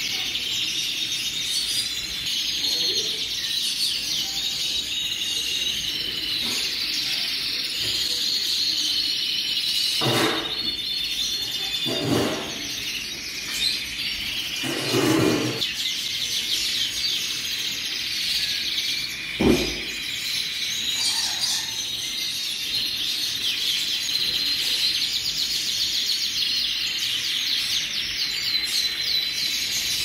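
A large chorus of domestic canaries, red-factor and lizard canaries among them, singing continuously in dense high trills and warbles. Four brief low thumps come through in the middle part, the loudest a little past halfway.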